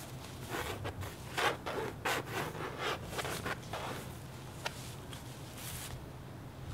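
Quick rubbing strokes on a large stretched canvas as oil paint is scrubbed in for the brown underpainting, a run of about three seconds that then dies down to a single click and a brief hiss.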